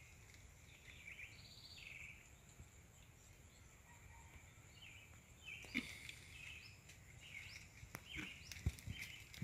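Faint outdoor ambience: scattered short bird chirps over a steady faint high whine, with a few soft knocks and rustles in the second half.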